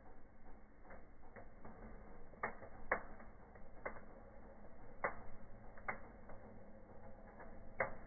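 Burning fir branch crackling in a fireplace fire: about eight sharp pops at irregular intervals, the loudest about three seconds in and just before the end.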